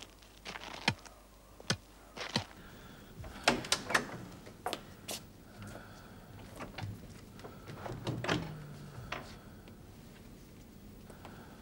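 A series of irregular sharp knocks and clatters, thickest in the first few seconds, then a few scattered ones.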